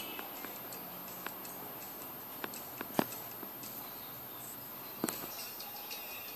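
A few sharp clicks and taps over a faint steady hiss, the loudest about three seconds in and a small cluster of clicks around five seconds in.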